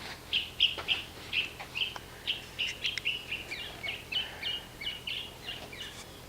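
Air leaking from a punctured tubeless mower tire held under water, bubbling out as a quick irregular run of small high-pitched blips, about three or four a second. The bubbles mark where a staple has pierced the tread.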